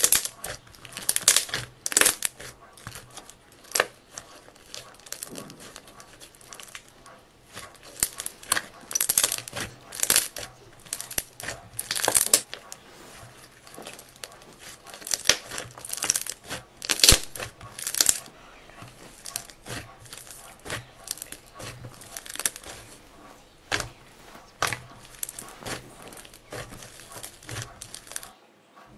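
Hands stretching, folding and squishing soft slime mixed with clay, giving irregular crackling, crinkly tearing sounds as the stretched slime pulls apart and air pockets pop.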